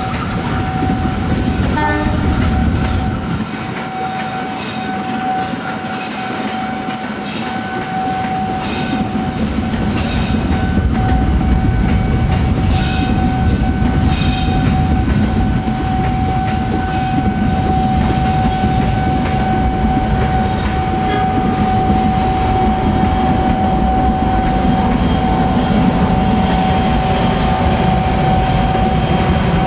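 Passenger train rolling slowly past: a steady rumble with scattered clicks of wheels over the rail joints. A steady high tone holds over it throughout.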